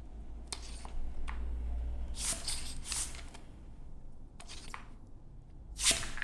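A handful of short hissing puffs of air from a syringe pushed into the scooter hub motor's threaded screw holes, blowing out leftover brake cleaner and debris from the threads.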